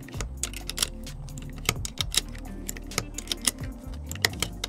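Cartridges being pressed one at a time into a pistol magazine, with sharp irregular clicks a few times a second, over background music.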